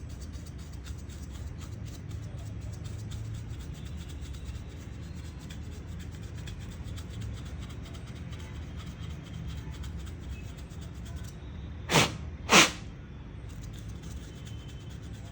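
Two short, loud puffs of air about half a second apart, near the end, over a low steady background hum.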